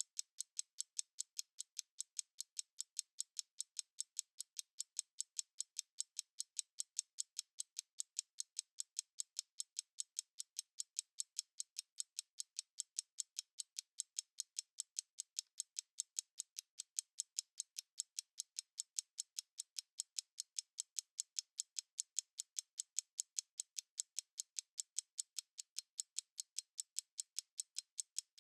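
Stopwatch ticking: a steady run of sharp, light, evenly spaced ticks, several a second, without a break.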